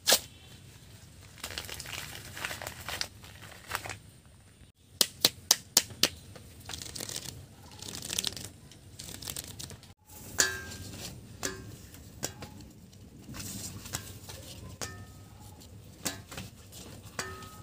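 Plastic packet of dried papads crinkling and rustling as it is opened by hand and the brittle discs are handled, with a quick run of sharp crackles about five seconds in.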